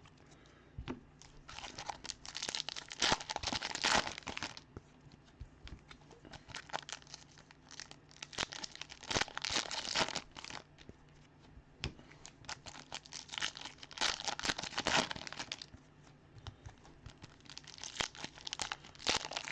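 Baseball card pack wrappers crinkling and tearing open, with cards rustling as they are handled, in four short spells with quieter pauses between them.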